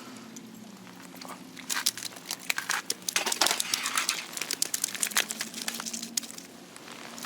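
Ice-fishing tent fabric crackling and flapping in a strong wind gust. The crackles build about two seconds in and die down near the end.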